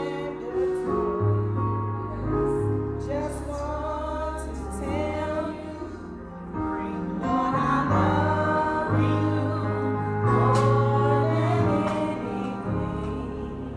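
A woman singing a slow gospel song while accompanying herself on an electric keyboard, with sustained low chords under her voice.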